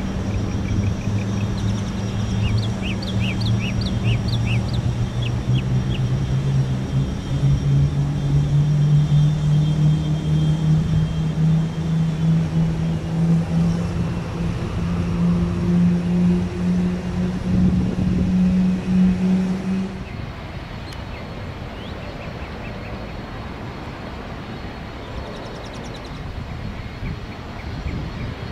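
Boeing 747 freighter's four jet engines at takeoff power through the takeoff roll and lift-off: a loud, steady drone whose low tones slowly rise in pitch. Birds chirp briefly in the first few seconds. About two-thirds of the way through it cuts to a quieter, steady jet rumble from another aircraft on the ground.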